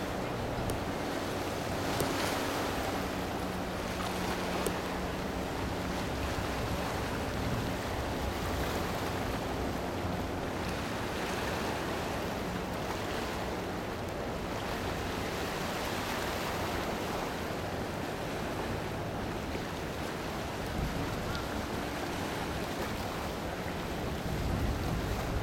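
Steady wash of waves and wind buffeting the microphone, with a low drone from the passing cruise ship that fades out about eight seconds in.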